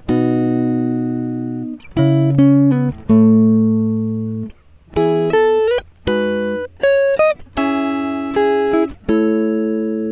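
Background music on a plucked guitar: a run of single notes and short chords, each struck sharply and ringing out as it fades, with a few notes sliding in pitch.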